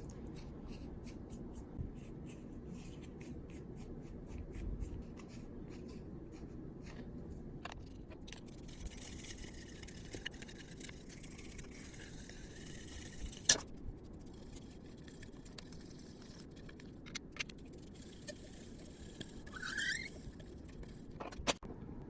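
Steel M5 bolt scraping and clicking as it is worked through the holes of 3D-printed PLA parts to clear out debris, with one sharp click about 13 seconds in and a brief rising squeak near the end.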